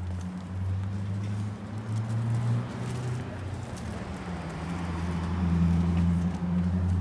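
A motor vehicle's engine humming low, with road noise that swells to its loudest about five to six seconds in.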